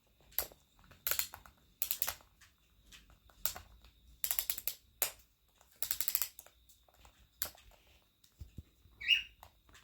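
A clicking dial being turned in short spurts, each spurt a quick run of sharp ratcheting clicks, about eight spurts in all. A brief high chirp comes near the end.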